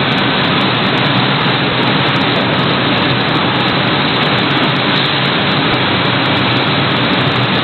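IBEX automatic carton tunnel freezer running: a steady rushing noise with a low hum underneath.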